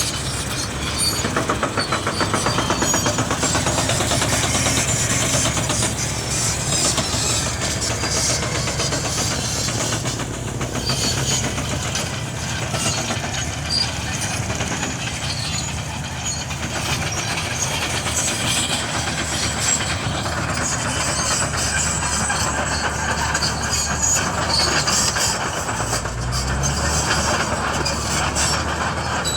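Bulldozer working: its diesel engine runs steadily with a fast, even rattle, and the engine note rises briefly near the end.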